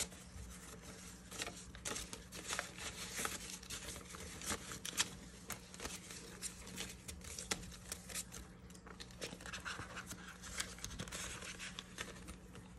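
Paper banknotes rustling and flicking as a stack of dollar bills is counted by hand, with crinkling from a clear plastic binder pouch as the bills are slipped in.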